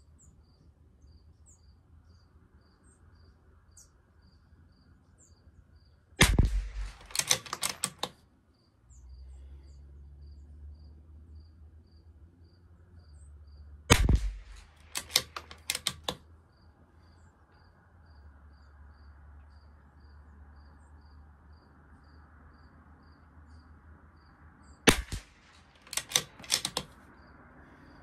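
Three shots from a Bergara B14R .22 LR bolt-action rifle, about six, fourteen and twenty-five seconds in. Each shot is followed by a quick run of metallic clicks as the bolt is worked to eject the case and chamber the next round. A cricket chirps faintly and steadily throughout.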